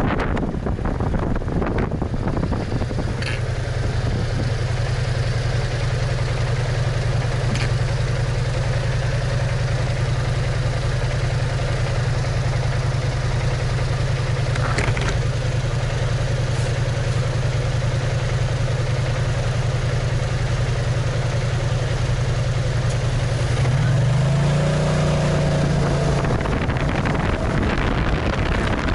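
BMW maxi-scooter engine idling steadily while stopped, then revving up as the scooter pulls away about 24 seconds in, with wind buffeting the microphone as it gathers speed.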